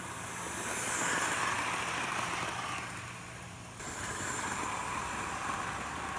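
Hornby OO-gauge model train, the Flying Scotsman locomotive and its coaches, running past on the track: a steady motor whir and wheel rumble that swells as the train comes close. About four seconds in, the sound changes abruptly.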